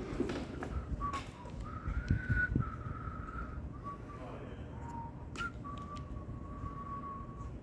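A person whistling a slow tune of long held notes with small slides between them, with a couple of sharp clicks.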